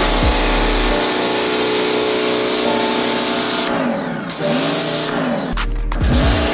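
Background music: sustained synth chords with pitch sweeps that rise and fall, over a steady hiss. A deep bass drops out about a second in and returns near the end.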